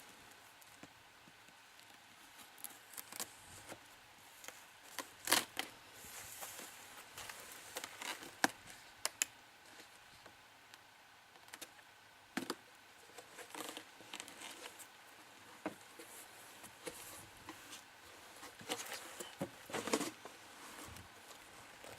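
A cardboard shipping box being opened and handled: scattered clicks, scrapes and rustles of cardboard and packing material, with a few sharper knocks.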